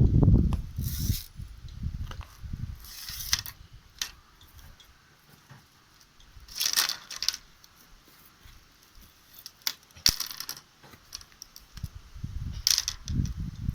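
Handling noises: brief rustling, scraping sounds about five times, with low bumps at the start and near the end.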